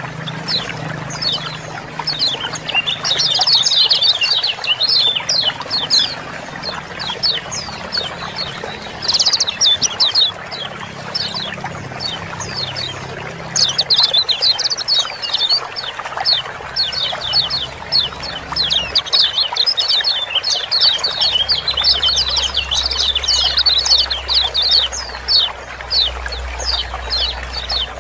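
Kecial kuning white-eyes giving rapid, dense bouts of short downward-swept 'ciak-ciak' chattering calls, overlapping and coming in waves, over a steady trickle of flowing water.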